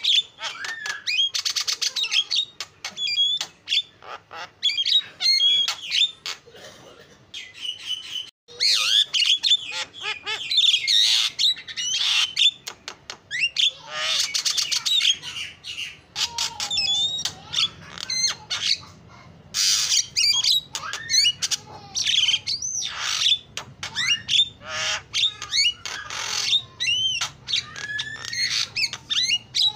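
Javan myna singing at full energy: a long, varied stream of whistles, gliding notes and harsh squawking chatter, with a short lull about six to eight seconds in.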